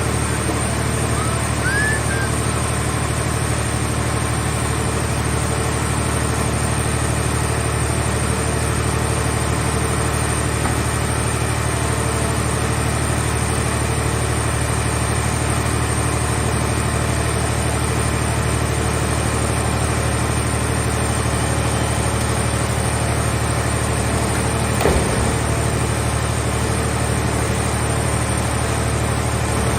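Engine of a hydraulic car-shell baler running steadily at a constant speed, a low even drone, with one short knock late on.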